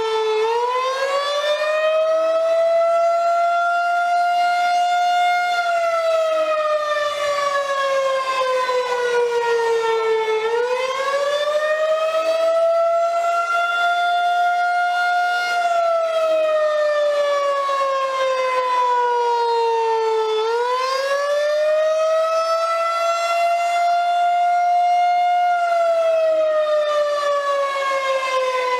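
Rotating outdoor tornado warning siren sounding a wail during a tornado drill. The pitch climbs quickly, holds, then slides slowly down, in cycles of about ten seconds, three times over.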